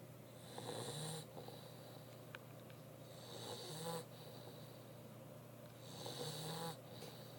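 Mastiff dog snoring in its sleep: three snores of just under a second each, evenly spaced about three seconds apart.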